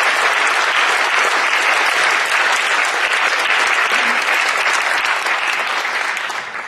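Audience applauding, with dense, sustained clapping that dies away near the end.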